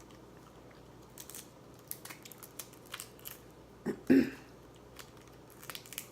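Shellfish shell being cracked and picked apart by hand while eating, with chewing: scattered sharp cracks and clicks, and one louder short burst about four seconds in.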